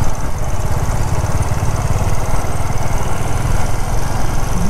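Motorcycle engine running steadily while being ridden, a dense low rumble with rapid pulsing and no change in pace.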